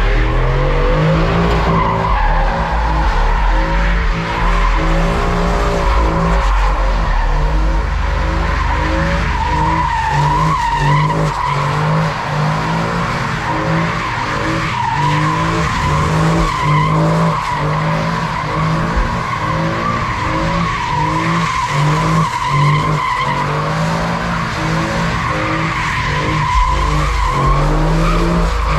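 Ford F-150 pickup doing donuts: its tires squeal without a break while the engine revs up and down over and over, holding the wheelspin.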